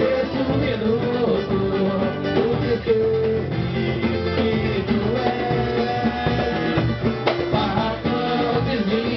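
Live samba band playing an instrumental passage: plucked strings carry the melody over steady percussion.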